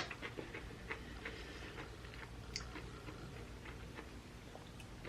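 A person chewing food close to the microphone, with faint scattered mouth clicks and one sharp click right at the start.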